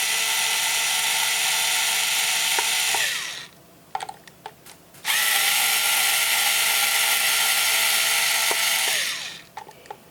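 Electric screwdriver motor running twice, for about three and then four seconds, each run ending in a falling whine as it stops; a few short clicks in the pause between. It is backing the bottom screws out of an Intel NUC mini PC.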